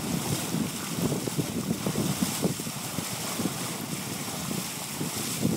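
Water rushing and splashing along the hull of a Hunter Vision 32 sailboat under way, with wind buffeting the microphone.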